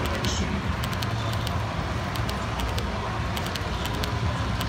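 Garden-railway model passenger cars rolling past on a curve: a steady low rumble with quick, irregular clicks of the wheels running over the track.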